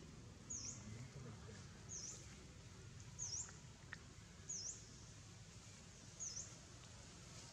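A bird repeating a short, high chirp that dips and then rises, five times about a second apart, over faint low background noise.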